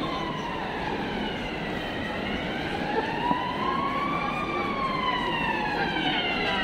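Emergency-vehicle siren in a slow wail, its pitch falling, rising and falling again over a few seconds, above the steady noise of city street traffic.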